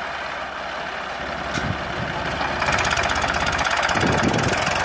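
Swaraj 855 tractor's three-cylinder diesel engine working under load, pulling a heavily loaded sugarcane trolley. It grows louder a little under three seconds in.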